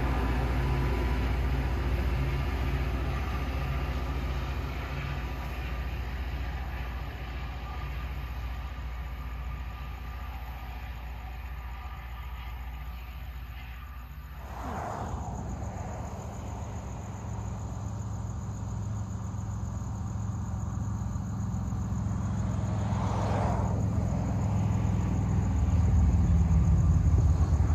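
Diesel engines of a Loram rail grinding train running with a low, pitched rumble that fades over the first half. About halfway, a falling whoosh of something passing is heard. The low engine rumble then builds louder toward the end, with crickets chirping steadily behind it.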